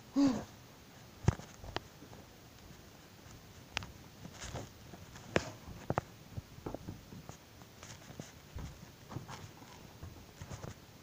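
Handling noise from a handheld phone: scattered light taps and clicks, after a short vocal sound at the very start.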